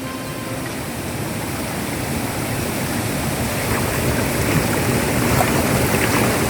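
Rushing water of a waterfall, a steady even noise that grows gradually louder. The last of some background music fades out in the first second.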